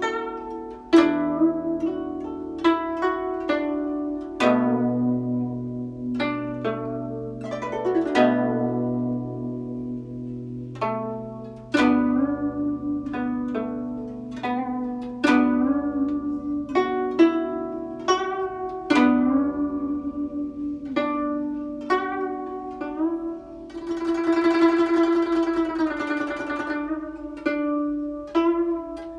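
Guzheng played solo: single plucked notes ring out and decay, several of them sliding in pitch as the string is pressed. About 24 seconds in there is a fast, shimmering tremolo passage.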